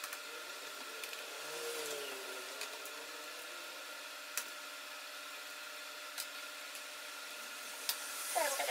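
A few isolated light clicks and taps as small tools and parts are handled on a laptop being taken apart, over a steady faint background hiss.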